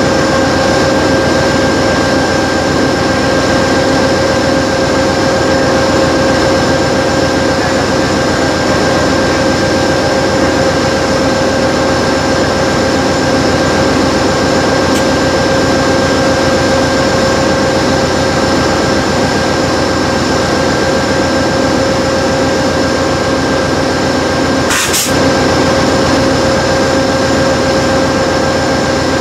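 Train noise, loud and steady, with a constant whine of several fixed tones over it and one short click near the end.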